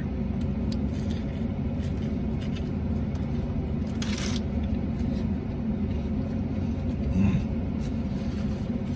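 Steady low rumble of a parked vehicle's engine idling, heard inside the cabin. Faint chewing can be heard over it, with a short rustle about four seconds in.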